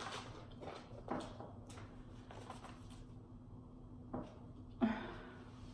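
Quiet room with a faint steady hum and a few short scattered clicks and rustles of small handling noises, the clearest about a second in and two more about four and five seconds in.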